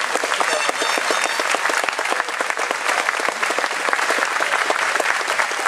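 Large crowd applauding, many hands clapping at once in a steady, dense patter.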